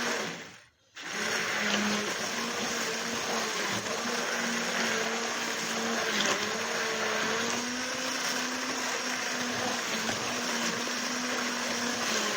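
Electric hand blender running steadily in warm milk and sugar, dissolving the sugar. The motor sound cuts out briefly near the start and then resumes.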